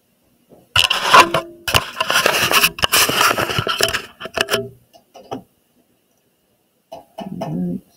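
Loud handling noise from a document camera being moved and positioned over a desk: a long run of rustling and scraping full of clicks and knocks, then scattered taps. A shorter, lower bump of handling comes near the end.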